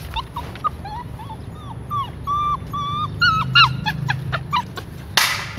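A puppy whimpering in a run of short, high yelps, then about five seconds in a single sharp clang: the puppy's metal food tray (ompreng) banged hard out of its sight as a sound-sensitivity test.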